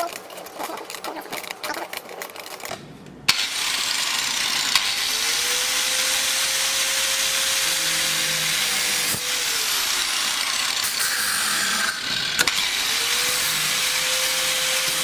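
Angle grinder switched on about three seconds in and cutting into the stainless-steel side frame of an iPhone XS at the buttons: a loud, steady, hissing grind with a humming tone that rises and falls twice as the disc bites, and a short break about three seconds before the end.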